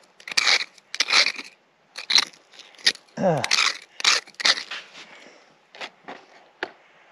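Hand pick digging into solid bedrock: repeated crunching strikes and scrapes of steel on rock and gravel, spaced further apart and fainter in the second half, as the rock is broken up to reach a detector target in a crack.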